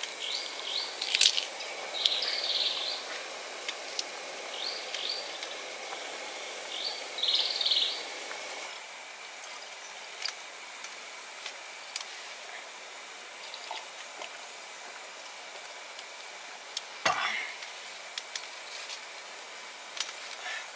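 Birds chirping in short clusters of calls over a steady, thin, high insect drone, with scattered small clicks. A background hiss fades out about nine seconds in, and the chirping thins out after it.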